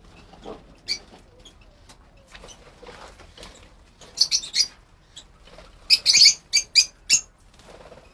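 Lovebirds chirping in sharp, high calls: a quick run of chirps about four seconds in, then a louder run about six seconds in.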